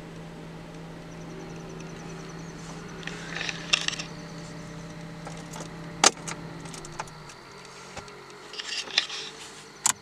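Clicks and light jangling rattles from handling inside a car, over a steady low hum that stops about seven seconds in. The sharpest click comes about six seconds in.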